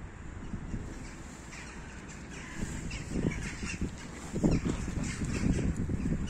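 Crows cawing in the background. Over them, rustling and bumping close to the microphone, loudest from about the middle on, as the tabby cat rubs against the phone, the person and a backpack.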